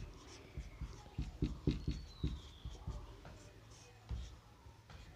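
Marker pen writing on a whiteboard: a quick run of short strokes and taps, busiest in the first three seconds, with one more stroke about four seconds in.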